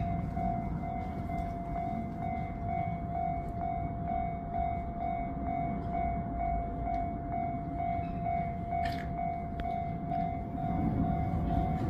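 Railway level crossing warning bell ringing steadily in a fast, even repeating ring, the signal that a train is approaching; a low train rumble builds near the end.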